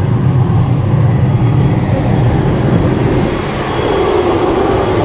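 Turboprop airliner's engine running steadily on the apron: a low rumble with a faint high turbine whine.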